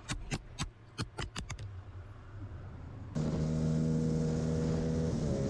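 A quick string of sharp knocks and scrapes right after a motorcycle crash, as the fallen bike's camera comes to rest. About three seconds in this cuts to a Yamaha MT-07's parallel-twin engine running steadily at road speed with wind rush, its pitch shifting slightly near the end.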